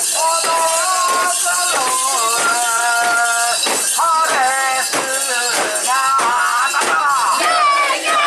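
Festival music: a melody of long held notes that bend and slide between pitches, over frequent sharp metallic jingling and clicks.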